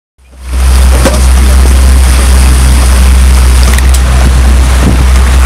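Motorboat running at speed across open water, a loud steady rush of motor, water and heavy wind on the microphone. It comes in abruptly within the first half second after a brief dropout.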